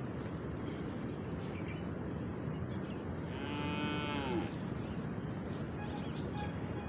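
A cow mooing once, a single call of about a second whose pitch falls at the end, over steady outdoor background noise.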